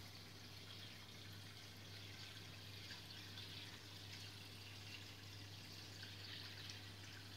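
Faint, steady trickle of aquarium filter water running into the tank, over a low, even hum.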